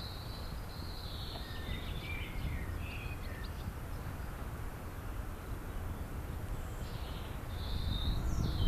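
Small birds chirping in short bursts, a cluster at the start and another near the end, over a steady low outdoor rumble.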